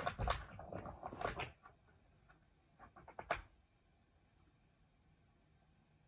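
A cat pawing at a plastic ball-track toy, the ball and plastic track rattling in a quick run of clicks and knocks for the first second and a half. A few more clicks follow around three seconds in, the last one the sharpest.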